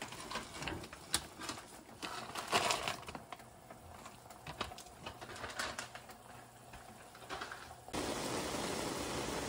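Dry egg noodles rustling and clicking as they are pulled apart by hand and dropped into a pan of broth. Near the end a steady hiss starts suddenly.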